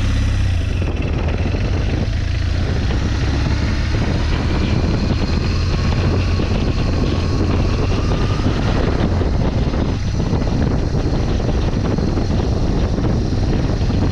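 BMW R 1200 GS boxer-twin engine running steadily as the motorcycle rides along a dirt track, a constant low engine drone mixed with road noise.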